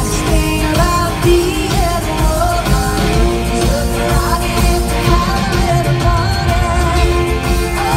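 Live pop-rock band playing with a woman singing lead into a microphone, recorded from the crowd in an arena.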